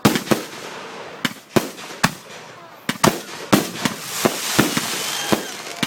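Fireworks going off: a dozen or so sharp bangs at irregular spacing, with crackling between them in the second half.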